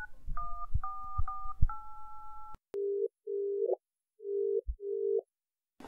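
A telephone number being dialled on a keypad: about five two-tone key beeps, each with a soft press thump, the last held for about a second. Then the line rings back in two pairs of short low beeps while the call connects.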